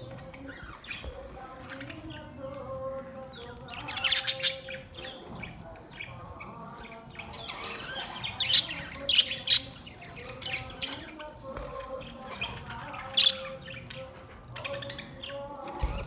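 A flock of budgerigars chattering and chirping, with louder sharp calls about four seconds in, a cluster between eight and ten seconds in, and another near thirteen seconds, over a steady high-pitched whine.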